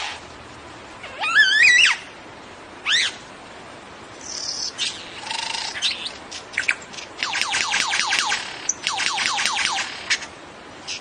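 Male superb lyrebird singing during its tail-fanned display: a loud, varied string of warbles and whistles, then two rapid runs of quick downward-sweeping notes.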